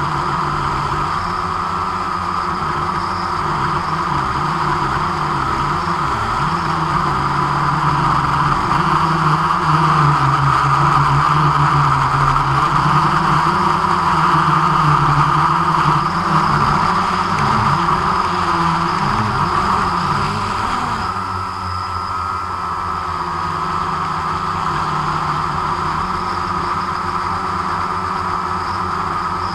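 A camera drone's electric motors and propellers running in flight, a steady whine heard close up from the drone itself, its lower pitch wavering as it manoeuvres. About two-thirds of the way through the low hum shifts and the sound drops slightly in level.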